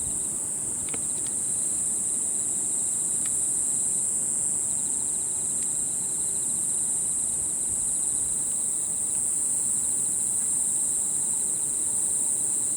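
A chorus of singing insects: one unbroken, very high-pitched trill, with a fainter, pulsing insect call lower in pitch beneath it.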